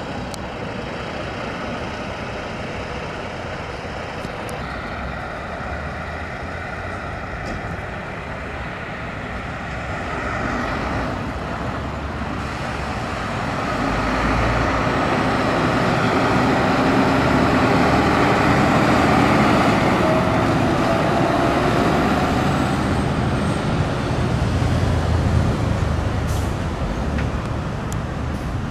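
Diesel engine of a 2005 Scania P260 fire engine running as the truck pulls out and drives away. The engine gets louder about halfway through as it accelerates out.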